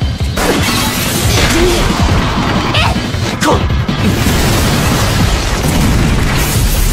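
Dramatic action-scene music under loud crashing and banging sound effects, with a few sharp hits, building toward a heavy blast as a building explodes near the end.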